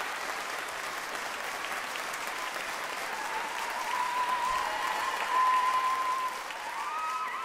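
Concert audience applauding, with a held high tone rising above the clapping from about three seconds in.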